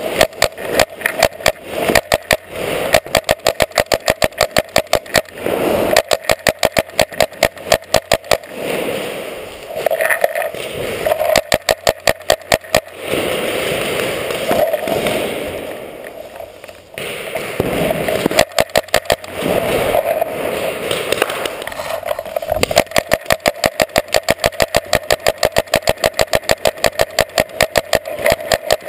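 Paintball markers firing in rapid strings of sharp pops, several shots a second, with short gaps between strings and a lull about halfway through.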